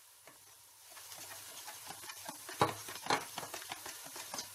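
Gram-flour and yogurt batter being stirred in a stainless-steel bowl: soft wet scraping and patting that starts about a second in, with two louder knocks against the bowl a little past halfway.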